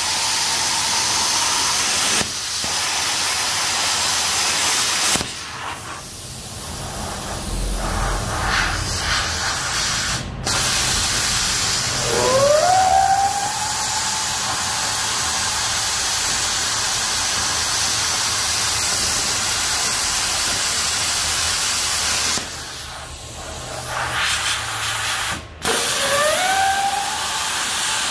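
Electric power tool running under load with a steady whine and a hissing cutting noise. It stops briefly a few times, and its motor spins up with a rising whine about twelve seconds in and again near the end.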